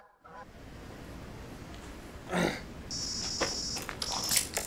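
Electronic bite alarm on a carp rod giving a high-pitched steady tone, once for about a second and again briefly near the end, with sharp clicks and knocks as the rod and reel are handled. A short dull knock comes about two and a half seconds in.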